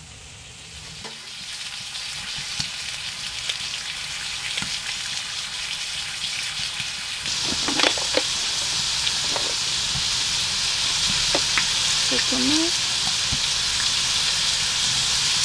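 Meat sizzling as it fries in a pan, a steady sizzle that grows louder, with a step up about seven seconds in. A few light clicks and short squeaks sound over it.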